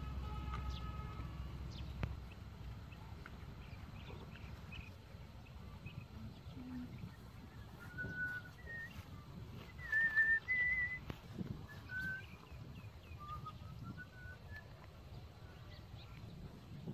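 Birds calling outdoors: a scatter of short, clear whistled notes, busiest around the middle, over a low background rumble.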